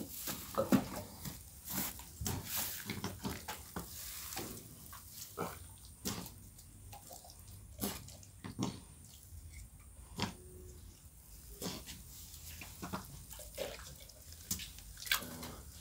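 Irregular wet clicks, slaps and squelches as a newborn calf, slick with birth fluids, is rubbed and handled and slips about on the wet ground.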